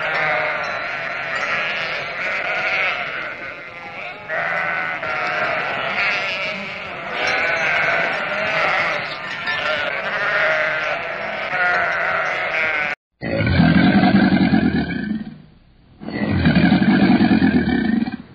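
Sheep and lambs bleating over and over, calls overlapping. About thirteen seconds in, this gives way to two long, loud, deep growling calls from a crocodile, each lasting about two seconds.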